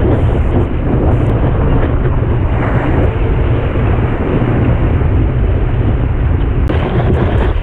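Wind buffeting the microphone over the steady rush of whitewater as a surfboard rides a breaking wave, with a few brief crackles of spray near the start and near the end.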